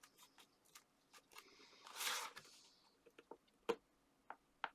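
Card stock being handled on a work surface: a few faint taps and clicks, a short papery swish about two seconds in, and a sharper tap later on.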